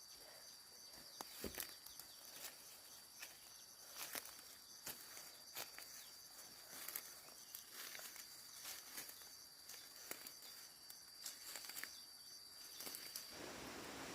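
Faint, steady high-pitched insect trill, with scattered light clicks and rustles; the trill cuts off suddenly near the end.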